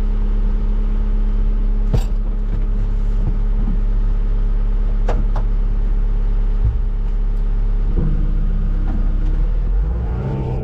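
Heavy diesel engine running steadily at idle, with sharp metal clanks about two and five seconds in.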